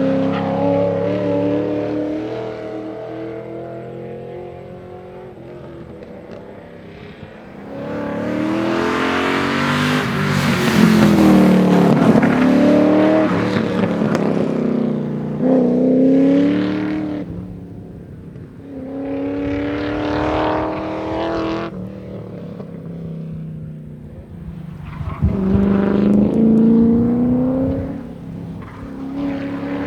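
Ford AU Falcon's engine accelerating hard through the gears on track. The pitch climbs and then drops back at each gear change, rising and fading as the car comes and goes, loudest about a third of the way in.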